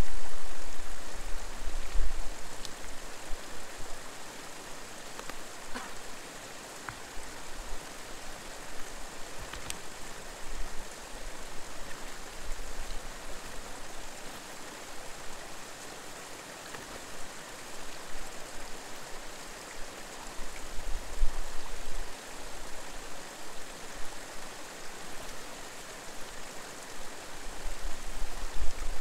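Steady rush of a rocky mountain creek below a waterfall, with a few brief low rumbles, the first right at the start and another about 21 seconds in.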